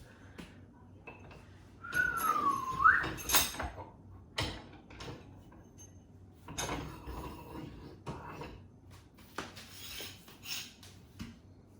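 Metal kitchen rail and its hanging hooks being handled and fitted: a string of light clicks, clinks and knocks, with one short high squeal-like tone that dips and then rises about two seconds in.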